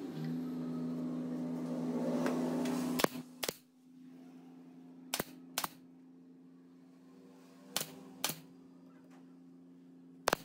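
Pneumatic brad nailer driving nails into wooden trim: sharp shots in pairs about half a second apart, the first pair about three seconds in and another every two to three seconds, over a steady low hum.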